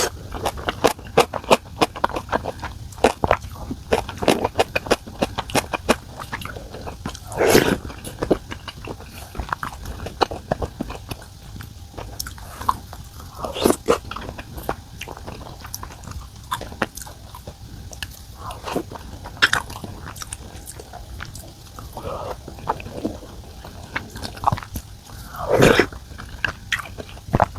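A person eating close to the microphone: chewing and biting, with many small clicks and a few louder sounds about seven, fourteen and twenty-six seconds in.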